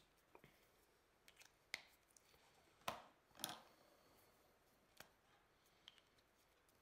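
Faint, scattered clicks of felt-tip marker pens being handled as one marker is swapped for another, a cap pushed on and a cap pulled off; about seven small clicks, the two loudest close together about three seconds in.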